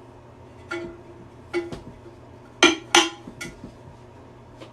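Hard clinks and knocks of a tool working at a stuck plastic fitting inside a porcelain toilet tank, with two loud sharp strikes close together a little past halfway.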